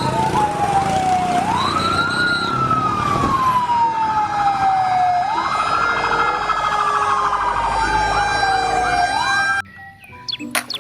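Fire-engine siren wailing, its pitch rising quickly and falling slowly in long sweeps, with quicker short whoops layered over it in the second half; it cuts off suddenly near the end.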